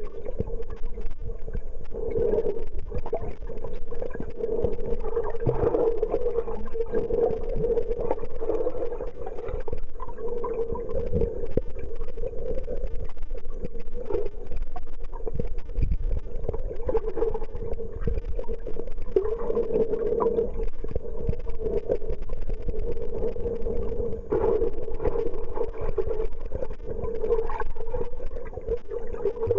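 Underwater sound of a swimming pool picked up by a submerged camera: muffled water rumble and gurgling under a steady hum.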